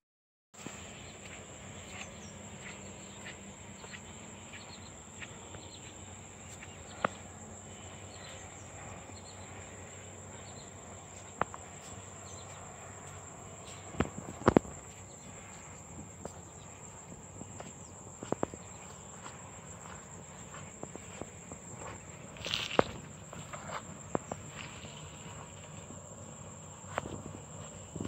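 Insects trilling in one steady high-pitched drone, with scattered sharp clicks and knocks on top.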